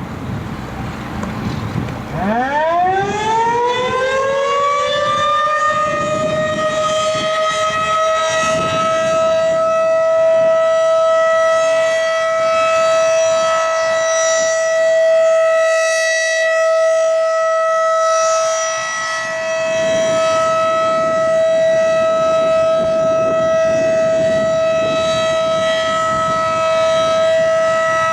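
Federal Signal 2001-DC outdoor warning siren winding up about two seconds in, its pitch rising over a few seconds to full speed. It then holds one steady tone, swelling and fading slightly as the rotating head turns.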